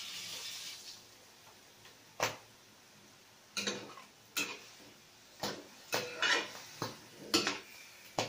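Metal spatula clinking and scraping against a stainless steel wok while stirring chicken wings: about ten sharp, irregular clinks from about two seconds in. A hiss dies away within the first second.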